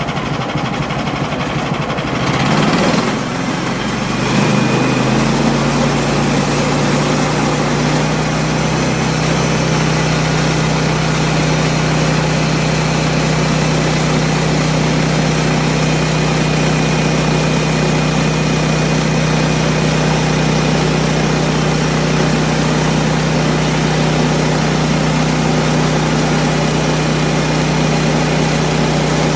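Sawmill engine running steadily. It rises in pitch and gets louder over the first few seconds, then holds an even note.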